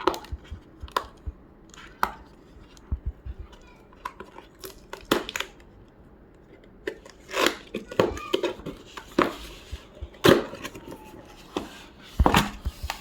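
A cardboard keyboard box and its packaging being handled and opened: irregular knocks, clicks and rustling, louder around the middle and near the end.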